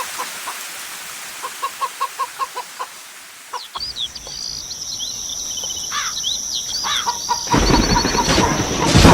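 A chicken clucking in a quick run of short calls, with small birds chirping over a thin high steady tone. Near the end a loud rushing hiss comes in and covers them.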